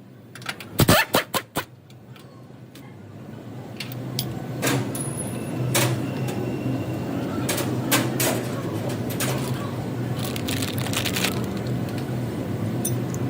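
Car running with a steady low hum that builds over the first few seconds and then holds, broken by sharp knocks and clicks, a quick cluster of them in the first two seconds and single ones later.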